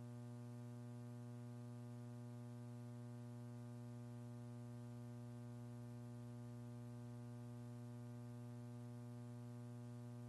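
Faint, steady electrical mains hum with a buzzy string of overtones, unchanging throughout; no rocket sound is heard.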